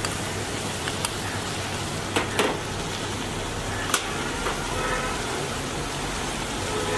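Chicken frying in a pan with a steady sizzle, and a few sharp clicks of a spoon against the pan as the coriander powder is stirred in.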